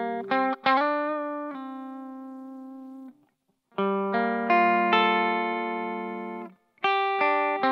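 Electric guitar played through a T-Rex FatShuga overdrive and reverb pedal: three short phrases of picked notes and chords. Each phrase rings out and fades, and the first two are cut off abruptly, about three and six and a half seconds in.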